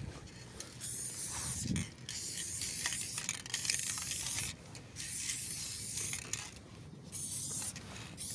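Aerosol can of chrome spray paint hissing in about four bursts of one to two seconds each, with short pauses between them, as paint is sprayed onto a wall.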